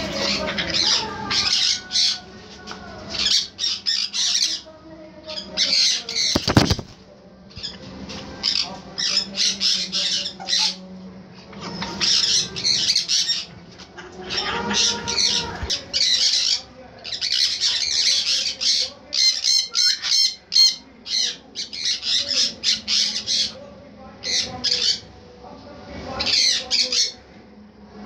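Young African grey parrots squawking in bunches of short, harsh, hissy calls, with a sharp knock about six and a half seconds in.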